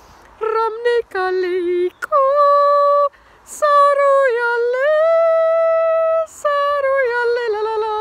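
A woman singing wordless long held notes, one to nearly three seconds each, gliding between pitches with a slight waver. Quick sharp breaths come between some phrases.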